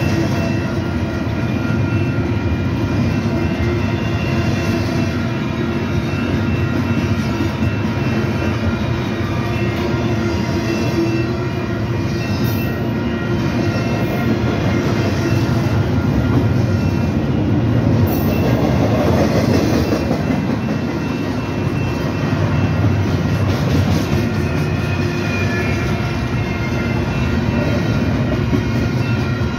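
CP Rail freight train of intermodal container cars rolling past: a steady, loud rumble of wheels on the rails. Thin steady high tones run through it.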